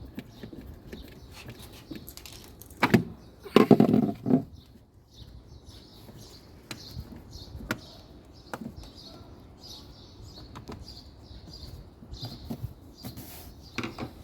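Knocks and clatter of parts being handled, loudest in a burst about three to four seconds in, with small birds chirping in the background.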